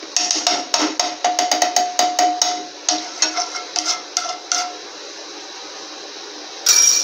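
A spatula tapping and scraping against a non-stick frying pan as it spreads melting ghee: quick, irregular taps for the first four and a half seconds, then a louder clatter just before the end.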